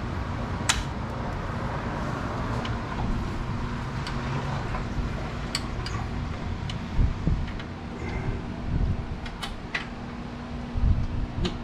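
Steady fan-like mechanical hum throughout, with a few sharp isolated clicks and some dull knocks of hand tools on metal parts as a bolt is worked loose.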